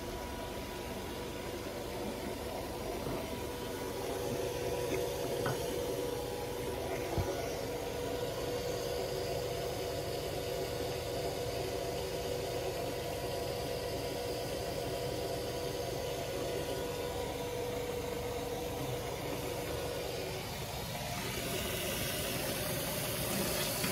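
Steady mechanical hum with a droning tone under it, and a rise of hiss near the end.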